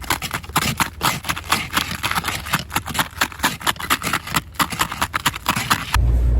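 Rapid brushing and scraping strokes of a broken broom head sweeping snow off a car, several strokes a second. Near the end it gives way suddenly to a steady low rumble.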